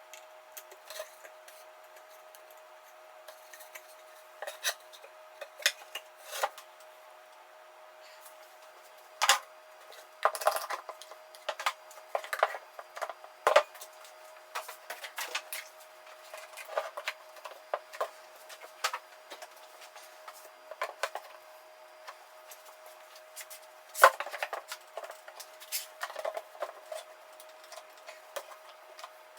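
Irregular knocks, taps and clatter of plywood pieces and metal tools being handled during a glue-up of two plywood discs, with the loudest knocks about nine to fourteen seconds in and another near the end. A faint steady hum runs underneath.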